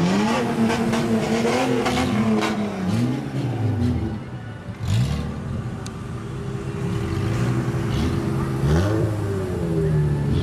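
Car engines revving as modified older Japanese cars drive past one after another, engine pitch repeatedly rising and falling. A steadier engine drone holds through the last few seconds.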